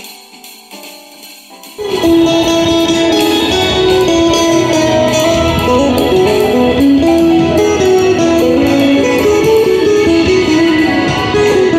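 Busker's acoustic-electric guitar played through a portable amplifier speaker: a plucked, moving melody that comes in loudly about two seconds in, after a quieter, thin-sounding stretch of music.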